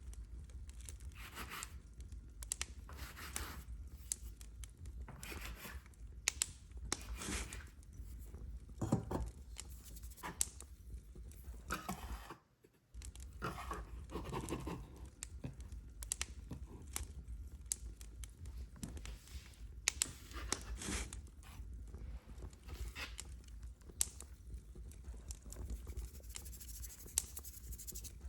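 A run of irregular scraping, rustling and tearing handling sounds with a few sharp light knocks, over a steady low hum. The sound breaks off briefly about halfway through.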